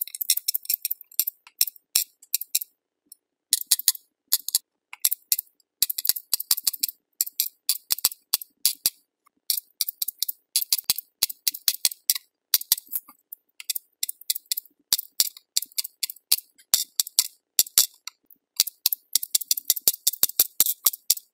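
Aquabeads bead dispenser pen clicking as it pushes beads one at a time onto a plastic pegboard template: sharp plastic clicks in quick runs with short pauses between them.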